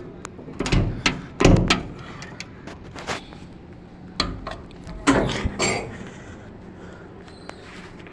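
Irregular knocks and thuds of hard objects being handled and struck, loudest about a second and a half in and again around five seconds in.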